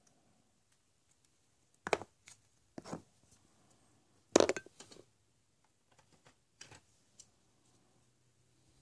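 Hollow plastic surprise eggs knocking and clattering against each other as a hand handles and rummages through a heap of them: a few short, separate clatters, the loudest about four and a half seconds in, then lighter ticks.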